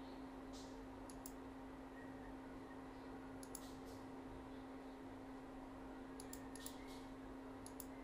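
Faint, scattered clicks of a computer mouse and keyboard, some single and some in quick clusters, over a steady low hum.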